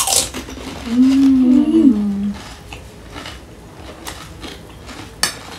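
A woman's closed-mouth "mmm" with her mouth full of panipuri: a wavering hum about a second long that starts a second in, after a short crunch at the start as the crisp puri is bitten. Faint chewing clicks follow, with one sharper click near the end.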